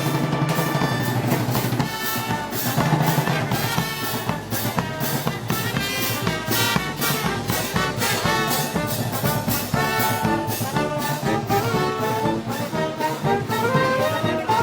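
A brass band with trumpets, trombones and drums playing Moros y Cristianos festival music with a steady beat.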